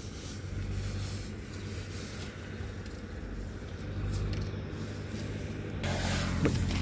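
A motor vehicle's engine idling, a low steady hum; about six seconds in, the sound grows louder and busier.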